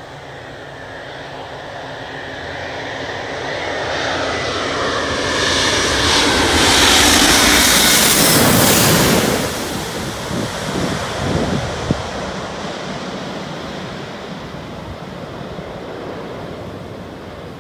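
Airbus A350 jet airliner on landing approach passing low overhead. Its Rolls-Royce Trent XWB engines grow steadily louder to a peak about seven to nine seconds in, with a falling whine as it passes. The sound then drops off and fades to a low rumble.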